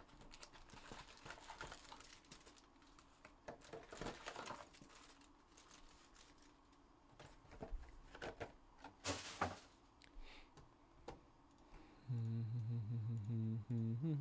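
Cardboard hobby box being opened and its foil-wrapped card packs handled: faint rustling, scraping and small clicks, with louder crinkles about four and nine seconds in. Near the end a man starts humming a steady low note.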